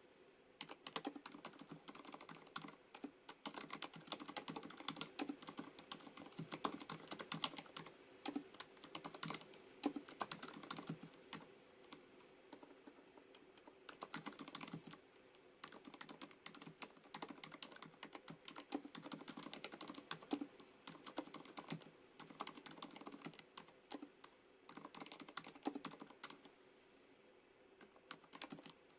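Typing on a FILCO Majestouch MINILA-R Convertible compact mechanical keyboard with Cherry MX Silent switches: fast, muffled key clicks in runs, broken by brief pauses. The keystrokes are soft, as the dampened silent switches are built to be.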